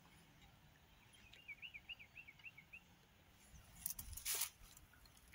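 A bird calls a quick run of about seven high chirps. About four seconds in comes a short, louder burst of rustling and scraping as a hooked tilapia is handled on the grassy bank.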